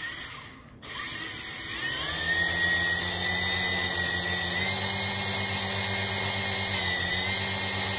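Small electric motors of a V-Max HX708 toy RC helicopter, its rotors spinning up about a second in, the whine rising in pitch, then running steadily at full power.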